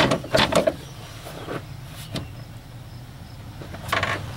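Sharp clicks and knocks of parts being handled and worked loose in a truck's engine bay, a quick cluster in the first second and then a few scattered ones, over a low steady hum.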